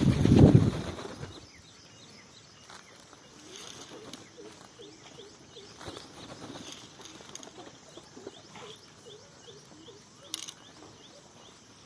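Small birds chirping, many short faint calls scattered throughout. In the first second a loud rushing burst, and about ten seconds in a single sharp click.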